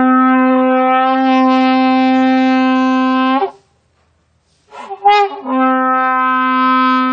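Two long, steady blasts on a horn, each held on one pitch for about three seconds, with a short wavering note between them.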